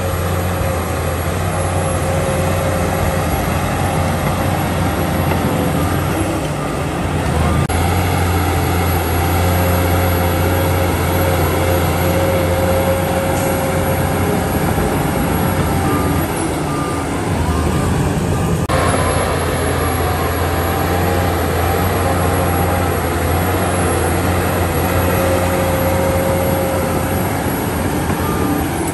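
Shantui crawler bulldozer's diesel engine running steadily under load as the blade pushes a heap of soil and rock, with a steady high whine over the low engine note.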